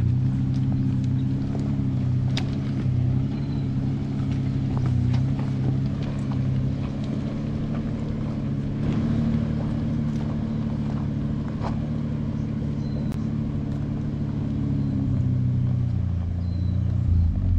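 A four-wheel-drive vehicle's engine runs at a steady low drone while driving, settling slightly lower in pitch near the end, with occasional sharp clicks and knocks over it.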